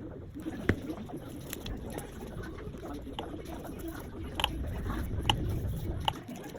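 Scattered small clicks and scrapes of tools and parts being handled during a smartphone repair, over a low rumble that grows louder about four seconds in and drops away near the end.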